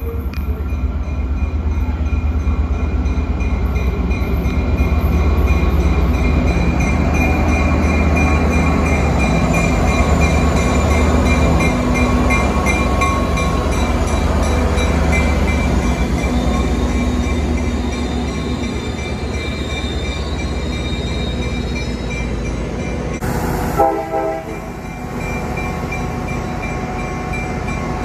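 Tri-Rail diesel locomotive and bilevel coaches moving along the station platform: steady low engine rumble and rolling-stock noise, with a steady high ringing tone above it. The sound breaks off abruptly about 23 seconds in, then the train rumble carries on.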